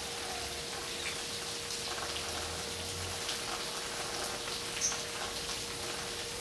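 Steady hiss with a faint steady hum and a few faint, short high bird chirps, one about five seconds in.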